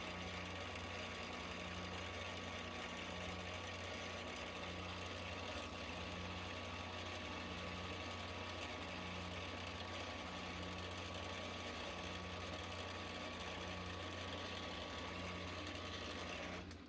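Milling machine motor and spindle running steadily while a twist drill bores into brass stock, a constant mechanical hum that stops suddenly at the very end.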